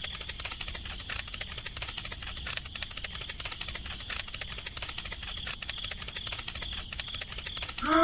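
Rapid light clicking, like a fast tapping sound effect, running steadily with many clicks a second, for the little figures' walking steps. A faint steady high tone sits under it.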